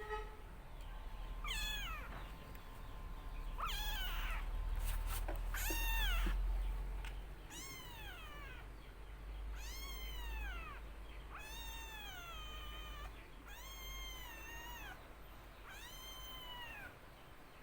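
Young kitten meowing over and over, about one high-pitched cry every two seconds, each rising and then falling in pitch. A few knocks and a low rumble come about five to six seconds in.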